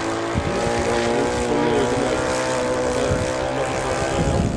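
Engine and propeller of a radio-controlled Cub-style floatplane running steadily at speed as it skims the water on its floats, the note wavering slightly in pitch.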